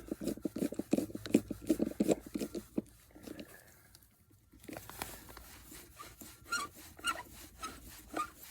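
Screwdriver driving the handle screw into a rebuilt outdoor water tap: about three seconds of rapid scraping, ratchety strokes, a brief near-silent pause, then lighter scattered clicks of metal on metal.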